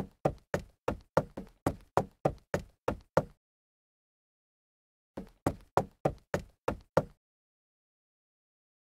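Rapid, even knocking at about three knocks a second. It comes in two runs separated by a pause of about two seconds, and each knock has a short ringing tail.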